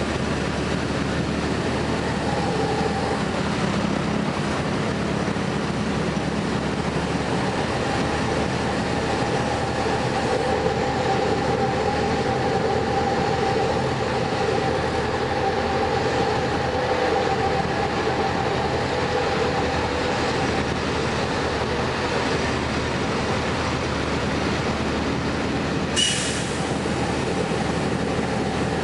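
Cabin noise of a LiAZ-4292 city bus under way: a steady engine drone and road rumble, with a hum that comes through for much of the middle stretch. A single sharp click sounds near the end.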